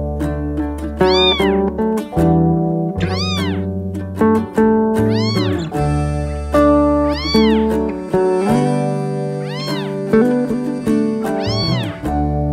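Newborn kitten mewing: six short cries that rise and fall in pitch, about two seconds apart, over background music with plucked guitar notes.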